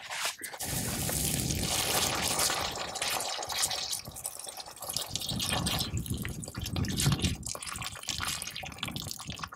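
Water poured onto the hot thermite slag and burning ground left by a breaching pen's cut, splashing and bubbling as it hits the hot spot. It comes in two spells, one in the first few seconds and another a little past the middle.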